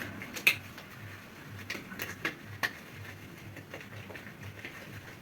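A glove being pulled onto a hand: faint rustling with a few small, irregular clicks and snaps.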